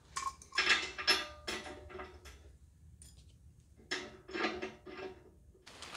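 Metal hand tools and steel hardware clinking and clattering against a steel lift column as a handle is fitted to it, in two bursts of ringing clinks separated by a pause of about a second and a half.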